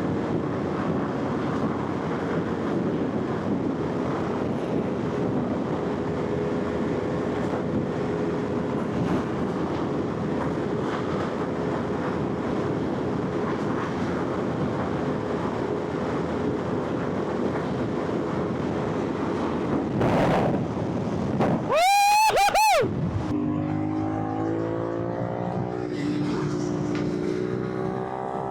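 Motorcycle riding at speed, with wind rush and the engine's hum running steadily under it. About three-quarters of the way through comes a loud, brief tone that rises and falls, and then the engine accelerates hard, its pitch climbing steadily.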